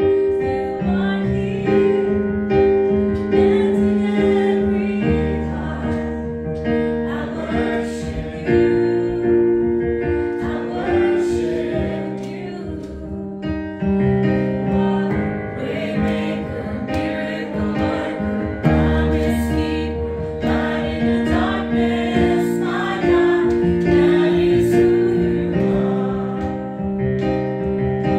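Worship song: voices singing over held keyboard chords and a bass line, the chords changing every second or two.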